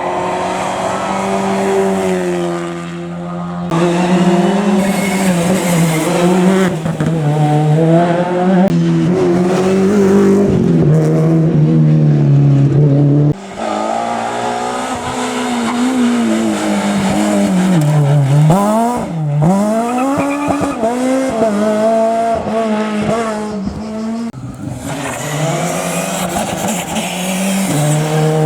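Rally cars at full attack on a special stage, engines revving up and falling away through gear changes, with tyre squeal. The sound breaks off abruptly about four seconds in and again about thirteen seconds in, as one car gives way to the next.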